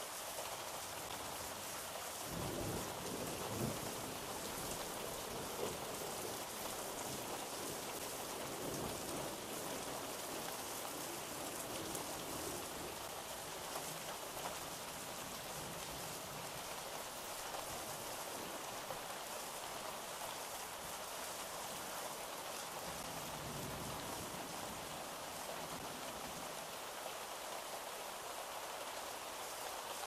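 Steady rain with rolling thunder: a long low rumble starts about two seconds in and fades over several seconds, and a weaker roll comes later.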